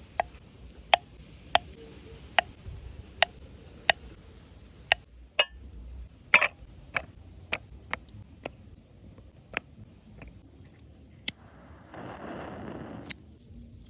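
A series of sharp taps or knocks, roughly one every half to three-quarters of a second and a little irregular, followed about twelve seconds in by a second of hissing noise.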